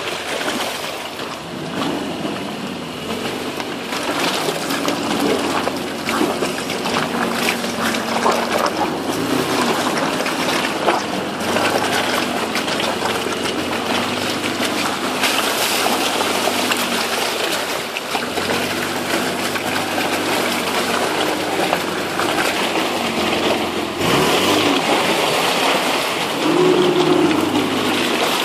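Toyota Land Cruiser 4.5 VX engine running at low revs as the truck crawls through mud, its note rising and falling with the throttle, over the tyres squelching and splashing through mud and water.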